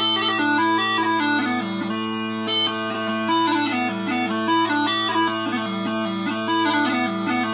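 Robert Felsburg (Quietpiper) four-drone small pipes playing a tune: the chanter's melody moves quickly from note to note over the steady hum of the drones.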